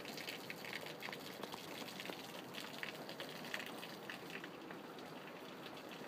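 Rain falling steadily, with many small drop ticks pattering through an even hiss.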